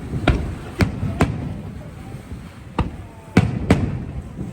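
Aerial fireworks shells bursting in an irregular string of about six sharp bangs, with a low rumble of further bursts between them.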